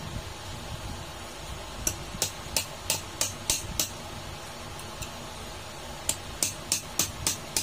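Sharp metal-on-metal taps of pliers striking an adjustable wrench clamped on a refrigeration fan motor's shaft, about three a second, in two runs: seven taps, a pause of about two seconds, then six more.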